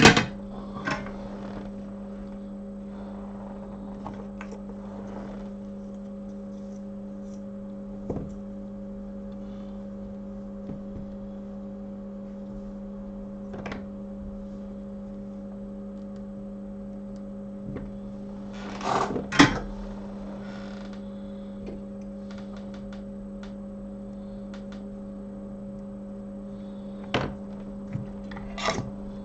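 Steady electrical hum from repair-bench equipment, with a few scattered clicks and knocks of tools being handled. The loudest knock comes about two-thirds of the way through, and a few more come near the end.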